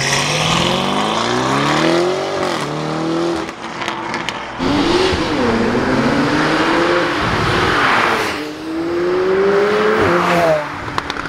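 Supercar engines revving hard as the cars accelerate away. The engine note climbs steeply three times in turn.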